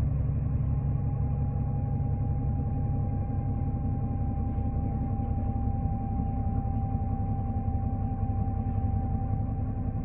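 Cabin sound of a 2005 New Flyer D40LF diesel transit bus underway: a steady low engine and road rumble with a thin, steady whine on top.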